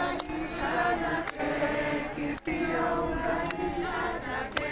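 A crowd singing together in unison, long held notes rising and falling. A sharp click sounds about once a second.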